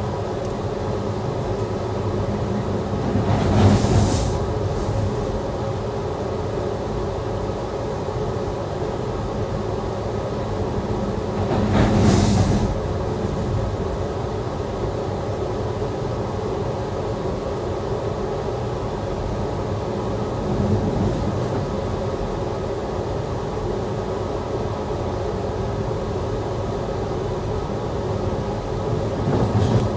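Amtrak passenger train running at speed, heard from inside the passenger car as it crosses the Benicia rail bridge: a steady rumble and rushing noise, swelling briefly louder four times, about eight seconds apart.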